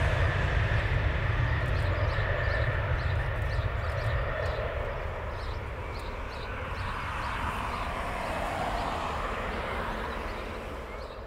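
Boeing 767-200ER's twin turbofan engines at takeoff thrust, a steady jet roar with a deep rumble as the airliner rolls, lifts off and climbs away. The noise slowly fades as it recedes, swelling a little again near the end.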